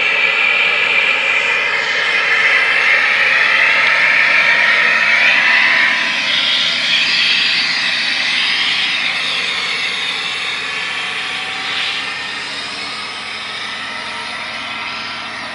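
Align T-REX 600 radio-controlled helicopter in an MD500 scale body running on the ground: a steady high whine from its rotor head and drivetrain, blended with a turbine sound from its onboard scale sound module. The sound grows quieter about six seconds in.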